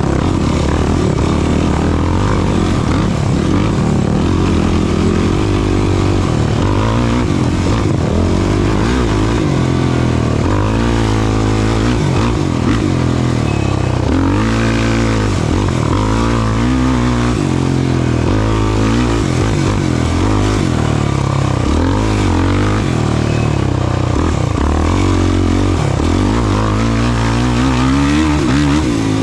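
Racing ATV engine under hard off-road riding, its pitch rising and falling again and again as the throttle is opened and closed and it shifts gears, over a steady rush of noise.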